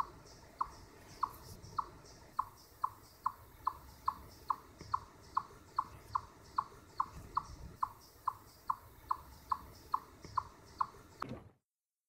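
A small animal's short, sharp chirp repeated at an even pace, about two and a half a second, over faint background noise. It cuts off suddenly near the end.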